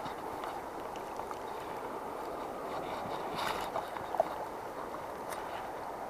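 Shallow river water flowing and rippling over stones, a steady rush. A brief sharp sound stands out just after four seconds in.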